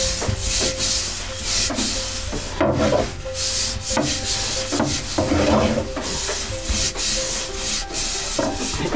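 Wooden rolling pin rolled back and forth over soba dough on a floured wooden board, making repeated hissing, rubbing strokes as the dough is rolled thin.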